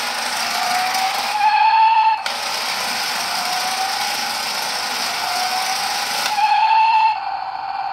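Toy RC stunt car's electric motors and gears whirring as it spins, with a whine that rises in pitch, breaks off about two seconds in, and rises again until near the end.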